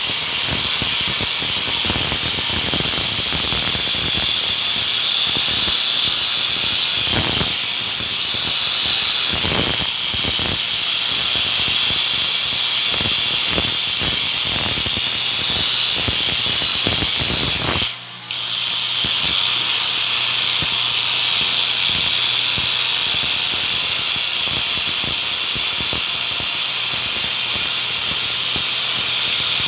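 Stick-welding (shielded metal arc) arc, crackling and hissing steadily as the electrode burns. The arc cuts out for a moment about two-thirds of the way through and is struck again.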